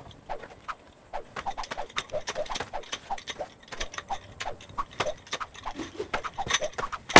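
An unseen small animal calling: a quick run of short chirping calls, several a second, mixed with scattered sharp clicks.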